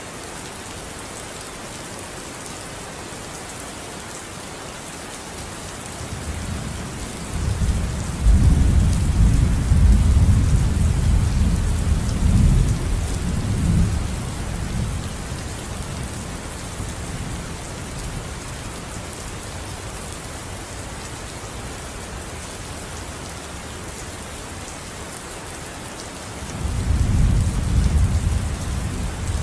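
Steady heavy rain falling, with two long rolls of thunder: one building about six seconds in and rumbling for several seconds, and another starting near the end.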